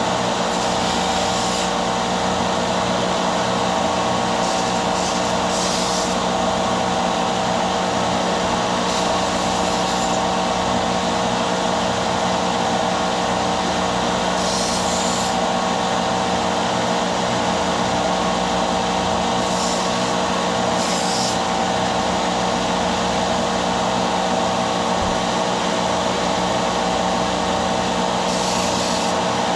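Electric power sander running steadily at a constant pitch while small aluminium parts are sanded. A brighter hiss comes in briefly several times, when a piece is pressed against the abrasive.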